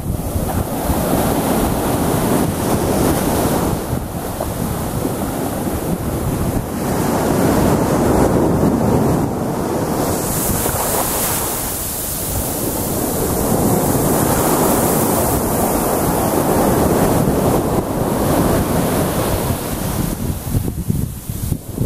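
Sea surf breaking and washing up a sandy beach, swelling and easing every few seconds, with wind buffeting the microphone.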